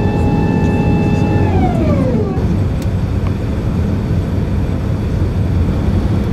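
Steady low roar of an Airbus A380 cabin during descent. Over it a held tone slides down in pitch and fades out about two seconds in.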